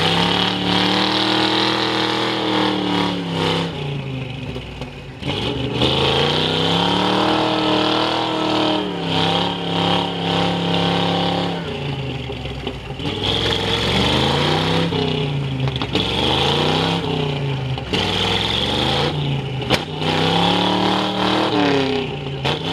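A Ford Bronco's V8 revving hard in repeated surges, rising and falling about every two to three seconds, with its tyres spinning and throwing mud as the truck sits stuck in deep mud.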